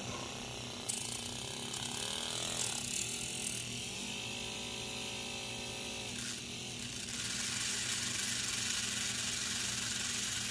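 Gasparin CO2 model engine running with a mechanical rattle. Its speed wavers for a few seconds, then steadies, as a finger knocks its fuel line and upsets the RPMs.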